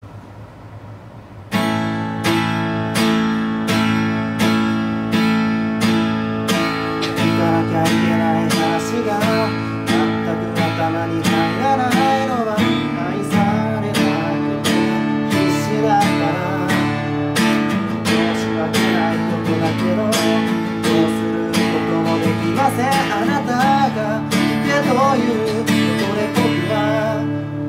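Acoustic guitar strummed in a steady rhythm, about two strokes a second, starting about a second and a half in.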